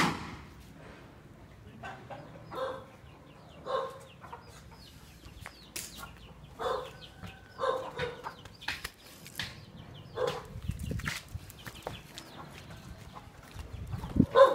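Domestic chickens clucking: a string of short single calls about a second apart, with a louder sound near the end. The opening holds the fading end of a sudden loud burst from a small test firework rocket launching.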